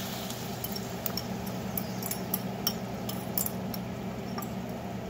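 A metal utensil clinking and scraping against a small saucepan in quick, irregular taps as sauce is poured out of it into a pan, over a steady low hum.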